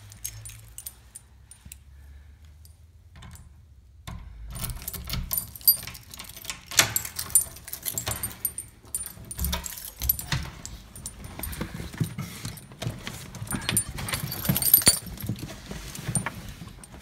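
A bunch of keys jangling and clicking, starting about four seconds in and going on in irregular rattles to the end.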